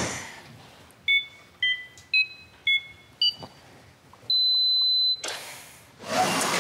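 Electronic keypad tones: five short two-note beeps at changing pitches, about two a second, then one longer steady beep, like a code being punched into a security keypad. A loud rush of noise follows near the end.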